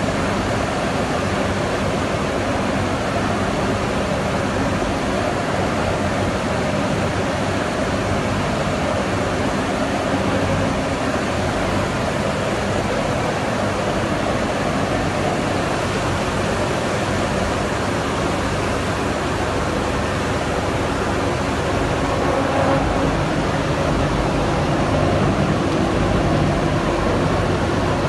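Industrial coconut shred dryer running: a steady, dense machine noise with a low hum underneath.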